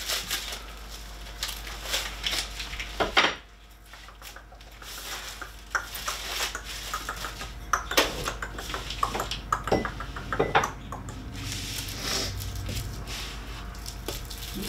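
Plastic wrapping crinkling as it is pulled off 3D printer frame parts, with irregular clinks and clacks of metal parts and tools being handled and set down on a table, the loudest knock about three seconds in.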